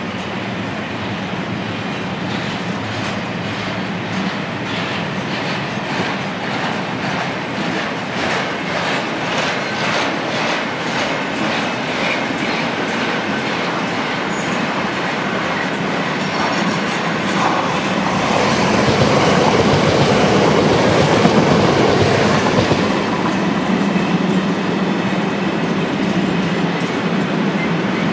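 Freight train of loaded car-carrier wagons rolling past, its wheels beating out a steady clickety-clack over the rail joints, getting louder about two-thirds of the way through.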